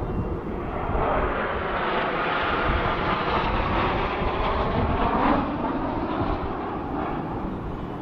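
Formation of display jets passing overhead: the engine noise swells from about a second in, is loudest about five seconds in, then begins to fade as the formation moves away.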